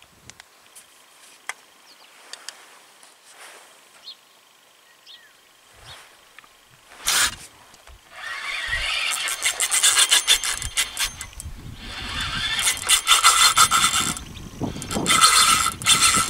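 A brief loud burst of noise about seven seconds in. Then a spinning reel clicks and buzzes fast in long runs with short breaks while a hooked carp is played on the rod and pulls against the line.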